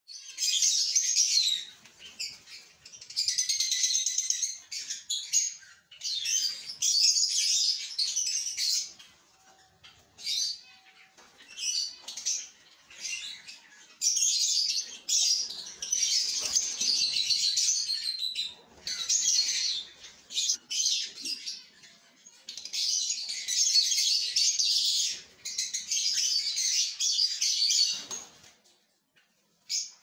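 Lovebirds chirping and chattering in shrill, high-pitched bouts of one to three seconds, with short pauses between.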